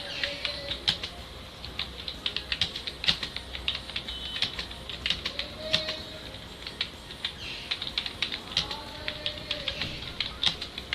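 Fast touch-typing on a computer keyboard: a quick, irregular patter of key clicks, several a second, during a timed typing-speed test.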